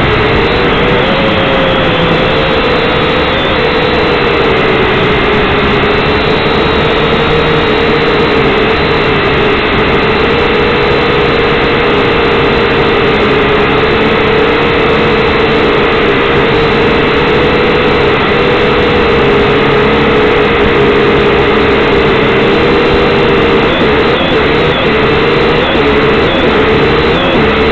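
Syma X5C quadcopter's small brushed motors and propellers whining steadily, recorded right up close by the drone's own onboard camera. The pitch wavers a little with throttle and gets more unsteady near the end.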